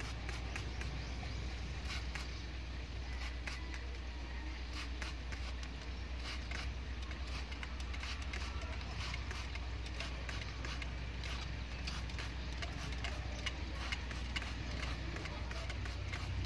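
Plastic trigger spray bottle squirting soapy water onto a car's side window, with a hand tool scraping over the wet glass: many short, irregular clicks and a light hiss, over a steady low hum.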